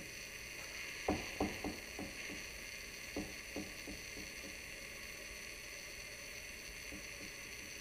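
Steady hiss of room tone with two short runs of soft, quick knocks, one about a second in and another about three seconds in.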